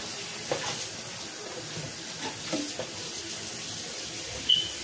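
Kitchen tap running into the sink while a cup is washed by hand, with a few light knocks.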